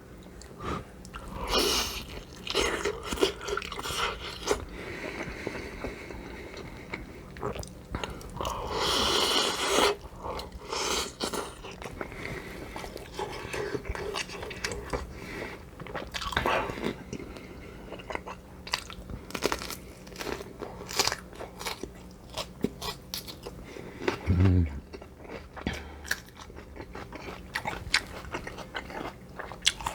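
Close-miked eating: crunchy bites and steady chewing of food, with a dull low bump late on.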